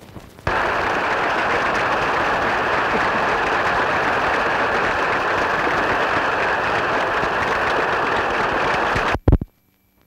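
Audience applauding steadily, starting suddenly about half a second in, then cut off just after nine seconds by a couple of loud thumps.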